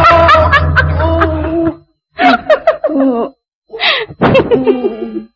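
Music that cuts off suddenly about a second and a half in, followed by short phrases of acted Burmese dialogue with brief pauses between them.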